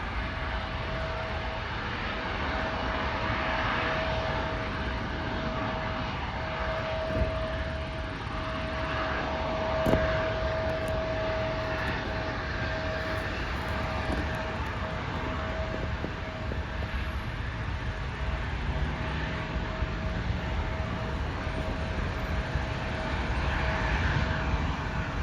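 Emirates Airbus A380's four jet engines at takeoff thrust: a steady, even engine noise with a constant whine. A single short click about ten seconds in.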